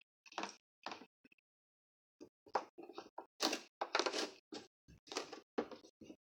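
A utensil stirring slime mixture in a plastic tub, scraping and knocking against the tub in a run of short, irregular bursts that grow busier after about two seconds.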